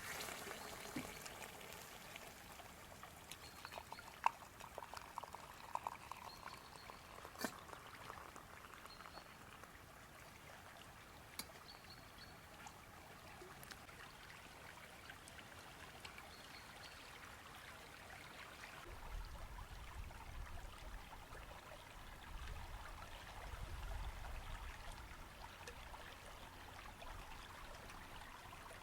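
Faint river water flowing steadily, with a few sharp clicks in the first dozen seconds and a low rumble from about two-thirds of the way in.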